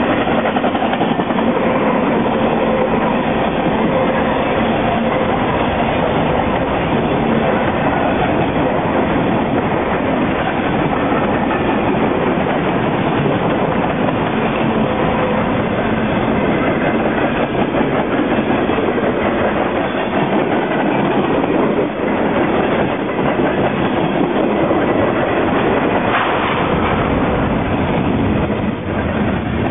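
Freight cars of a passing BNSF mixed freight train rolling by: tank cars, hoppers and boxcars make a steady, loud noise of steel wheels running on the rails.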